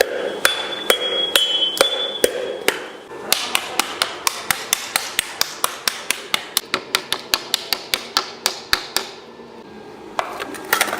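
Hammers striking bronze in gong forging. A few slower blows with a ringing metallic tone are followed by a rapid, even run of about five blows a second, which stops about nine seconds in; a few more strikes come near the end.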